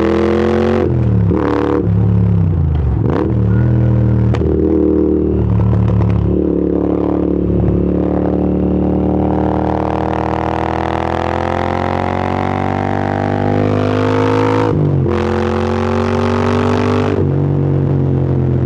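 Moto Guzzi V7 transverse V-twin engine running under load on the road, its pitch climbing slowly as it accelerates, with a brief break about fifteen seconds in like a gearshift.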